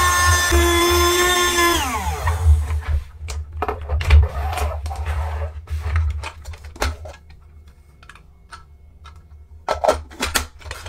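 Miniature Henry desk vacuum's small electric motor whining steadily, then winding down with a falling pitch about two seconds in. After that come scattered light plastic clicks and knocks as the vacuum's body and lid are handled.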